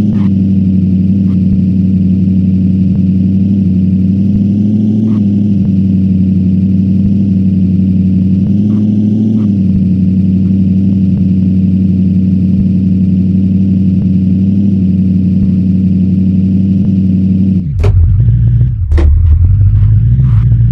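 SUV engine running at steady revs, its note rising slightly twice. Near the end come a few sharp knocks, and the engine note drops lower and then climbs.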